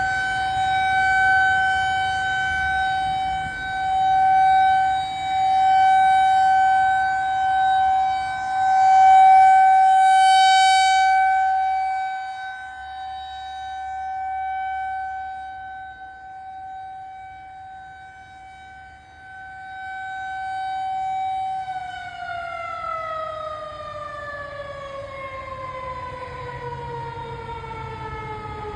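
Federal Signal 2001-SRN single-tone rotating electromechanical siren sounding a steady tone that swells and fades in loudness as the rotating horn sweeps around. About twenty seconds in, its pitch begins falling steadily as the siren winds down at the end of the test.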